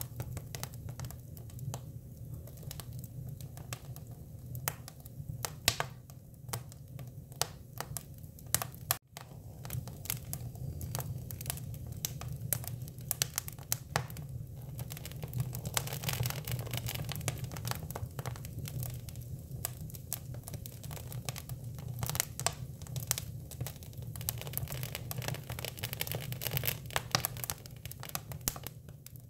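Hinoki cypress wood fire crackling, with frequent sharp pops and snaps over a low steady rumble; the sound cuts out for a moment about nine seconds in.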